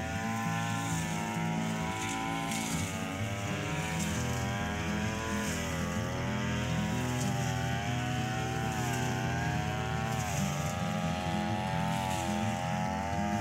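Backpack brush cutter engine running at high speed while the spinning cutter mows grass, its pitch wavering up and down as the load changes and dipping briefly twice, about six seconds in and near ten seconds in.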